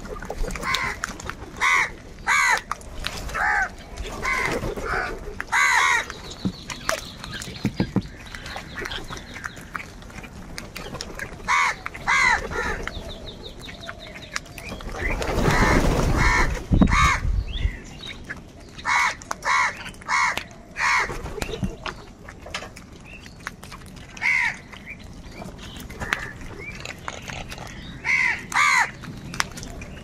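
A flock of house crows cawing, short harsh caws from many birds scattered through the whole stretch, often two or three in quick succession. About halfway through comes a loud rush of flapping wings as a crow flies in close.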